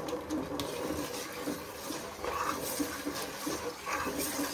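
A spoon stirring thin split moong dal payasam in a pot: the liquid sloshes, with a few brief scrapes of the spoon against the pot, about two seconds in and again near the end.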